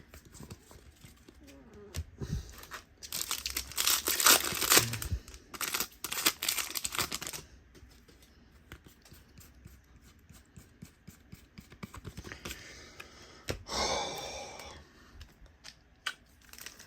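Donruss football card pack wrappers being torn open and crinkled, in loud rustling spells from about three to seven seconds in and again around fourteen seconds, with small clicks and handling noises in between.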